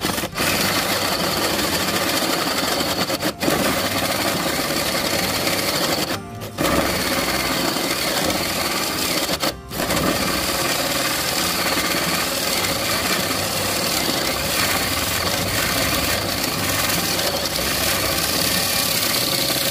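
Cordless 21 V drill driving a 55 mm hole saw into wood, running steadily under load with a high whine. The cutting stops briefly a few times, most clearly about six and ten seconds in.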